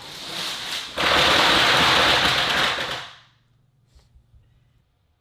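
Video-game explosion from fireworks going off: a dense, loud hissing blast that swells about a second in, holds for about two seconds and dies away, followed by a few faint ticks.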